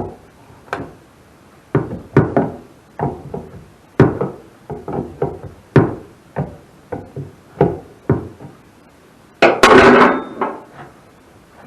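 Hand tools knocking and tapping against a fitting on a sawmill fuel tank as it is worked loose to unscrew it: a string of irregular knocks, with a louder clatter about ten seconds in.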